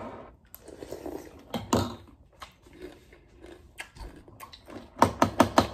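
Someone eating crunchy cereal with milk from a ceramic bowl with a spoon: scattered clicks and crunches, then a quick run of about eight sharp clicks near the end.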